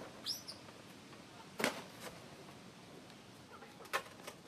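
A baby macaque gives one short high squeak near the start, followed by a few sharp knocks, the loudest about a second and a half in and another near four seconds.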